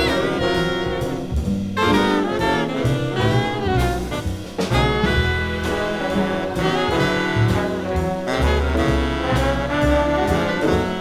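Jazz big band playing: saxophone, trumpet and trombone sections over piano, guitar, bass and drums, with steady drum strokes throughout.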